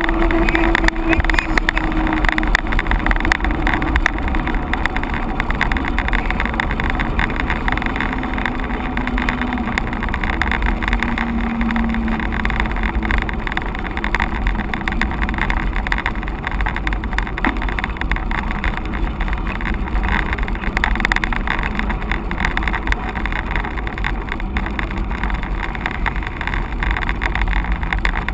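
Wind rushing over the microphone with the rolling noise of a mountain bike on the move, steady throughout, with a faint engine-like hum coming and going near the start and again around the middle.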